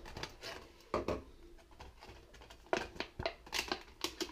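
Clear plastic blister pack crackling and clicking as it is prised open and the plastic tray is pulled apart from the card insert. There is a louder click about a second in and a flurry of crackles near the end.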